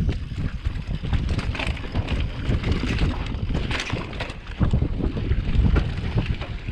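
Mountain bike riding downhill over dirt and rock: wind buffeting the microphone with a steady rumble, and the tyres and frame giving many short knocks and rattles over the bumps.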